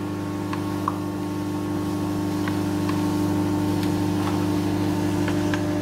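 A steady electrical hum, with a few faint, irregular ticks of a metal spoon against a plastic bowl as batter is stirred.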